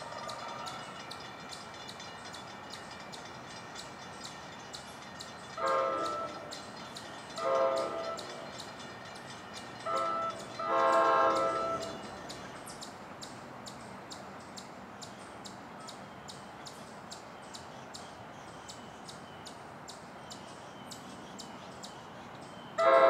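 Distant locomotive horn sounding a chord in the grade-crossing pattern: two long blasts, a short one, then a longer one, with one more blast near the end as the train approaches.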